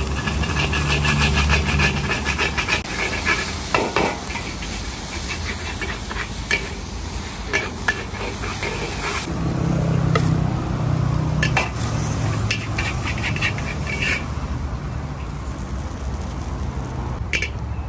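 Char kuey teow sizzling in a hot wok while a long metal spatula scrapes and clatters against the wok in quick, repeated strokes.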